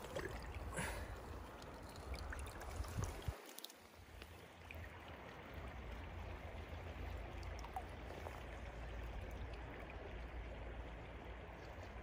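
Faint running stream water, lapping and trickling in the shallows, with a brief dropout to near silence about three and a half seconds in.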